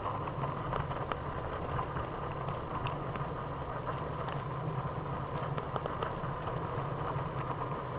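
Steady rolling rumble of a Trikke's wheels under way, muffled by the camera sitting in a pocket, with light scattered clicks.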